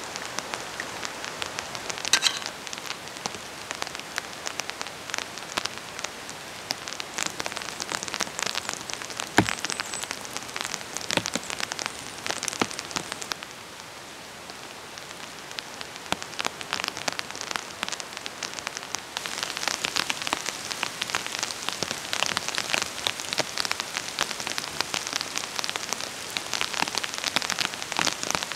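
Steady rain falling in a conifer forest, many separate drops ticking on the foliage and ground. There are a few louder single clicks in the first half, and the rain grows denser in the last third.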